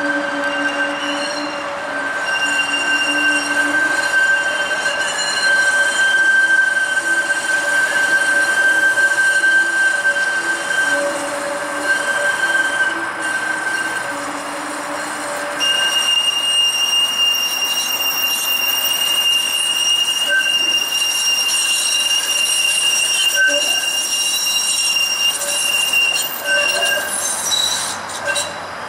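Steel wheels of a TTC Flexity Outlook streetcar squealing as it rounds the tight curve of a turning loop. The squeal holds steady for a long time and jumps to a higher pitch about halfway through, fading near the end.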